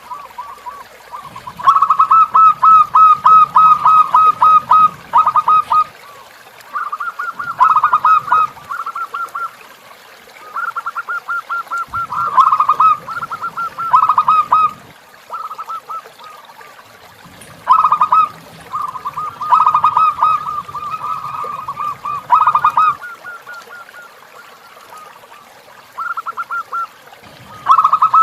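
Zebra dove (perkutut) cooing in rapid runs of many quick notes, each run lasting a second to a few seconds, repeated again and again with short pauses between.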